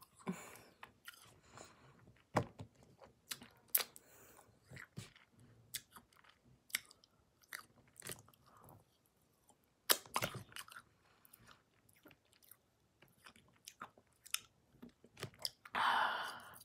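Chewing pieces of Sweet Tarts candy, with scattered sharp crunches at an irregular pace, and a short louder breath near the end.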